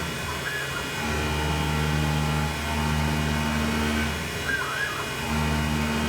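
CNC-converted Grizzly G0704 benchtop milling machine taking a facing cut, a steady low hum that breaks off briefly every second or two, with short squeaky chirps in the breaks.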